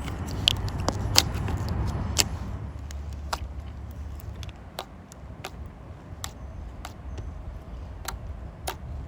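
Glossy clicky slime being squeezed and stretched by hand, giving sharp irregular clicks and bubble pops. The loudest pops come in the first couple of seconds, and the clicks turn fainter and sparser after that.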